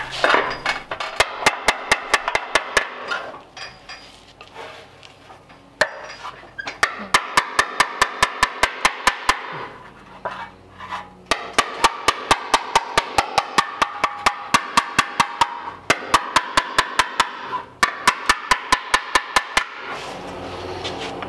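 Body hammer tapping on an old sheet-metal fender with a dolly held up underneath, quick light taps about five a second in four runs with short pauses, each with a brief metallic ring. Tapping around the edge of the dent while pushing up in its centre is slowly raising the damaged metal.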